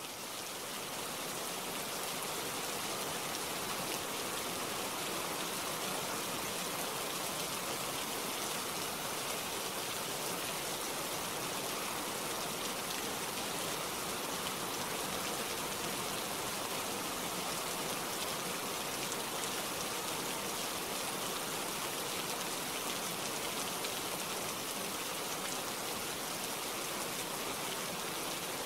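Steady rain, a dense even hiss of falling drops, swelling up over the first couple of seconds and then holding level.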